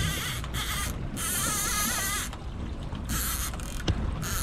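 Fishing reel whirring in several short bursts, the longest about a second long with a wavering pitch, while a hooked fish is being fought on a bent rod.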